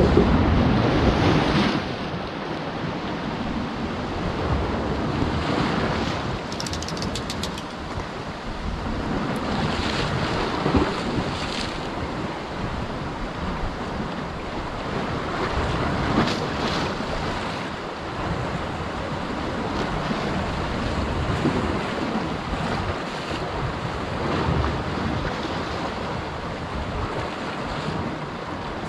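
Sea waves breaking and washing against a rocky shore, swelling and easing every few seconds, with wind buffeting the microphone.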